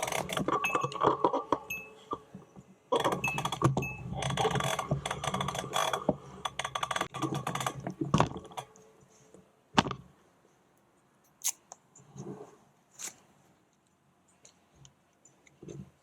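Metallic clinking and rattling, dense and continuous for the first eight seconds or so, then a few scattered clicks and knocks.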